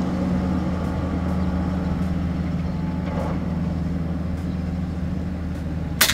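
A steady low hum throughout; near the end, one sharp report from a silencer-fitted .22 FX Impact M3 PCP air rifle firing.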